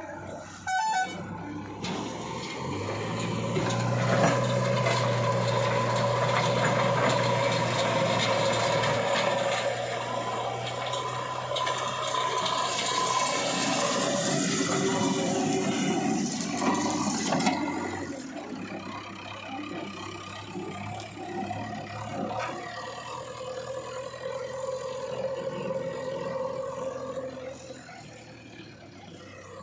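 Backhoe loader's diesel engine running, rising to a louder, steady working note a couple of seconds in and easing back to a quieter level a little past halfway.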